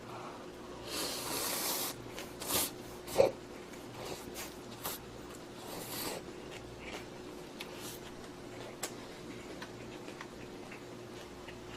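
A person eating close to the microphone: a hissing noise for about a second, a few sharp clicks, then scattered faint mouth clicks of chewing, over a low steady hum.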